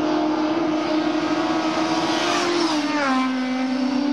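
Motorcycle engines running steadily, then falling in pitch about three-quarters of the way through as the bikes come off the throttle or pass by.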